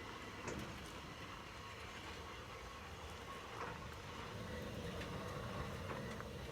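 Sawmill head rolling along its steel track, its wheels making a steady low rumble with a few light clicks.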